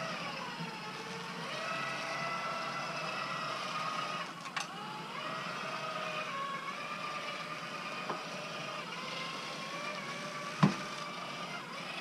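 Dometic power awning's electric motor running to roll the awning in, a steady whine that wavers slightly in pitch, with a few knocks, the loudest near the end.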